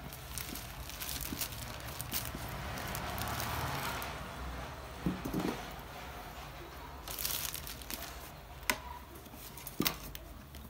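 Handling noise: rustling and crinkling as cables and plastic pipes are moved about, with a few sharp clicks and knocks in the second half, over a low steady hum.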